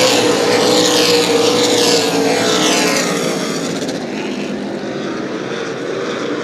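Super late model stock cars' V8 engines running at racing speed as the pack goes around the track, a dense engine drone with pitch sweeps as cars pass. It eases off and settles to a steadier, quieter drone after about three seconds.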